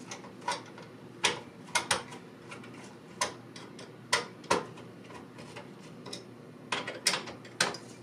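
Flathead screwdriver loosening the spring-loaded captive screws of a CPU heatsink, with irregular sharp clicks as the screws pop free of their threads.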